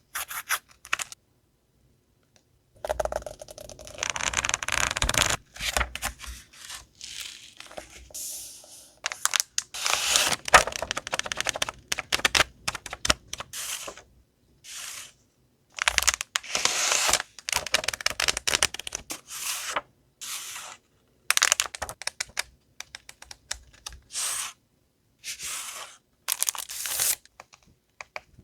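Packaging of stationery supplies being unwrapped and handled: crinkling and tearing of plastic and paper in many short bursts, broken by abrupt silent gaps.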